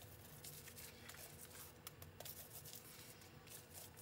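Faint, irregular scraping of a steel spoon rubbing ghee over the crisp, charred surface of a hot besan roti.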